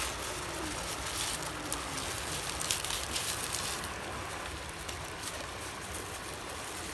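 Steady rush of a shallow river, with light rustling and crinkling as lemongrass stalks are pushed into a raw chicken lying on plastic bags.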